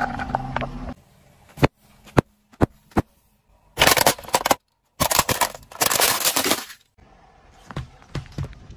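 A car tyre crushing plastic cups and a plastic toy, with the car's engine running under the first second. A few sharp separate cracks come first, then two longer bursts of dense crackling and crunching, then softer scattered pops near the end.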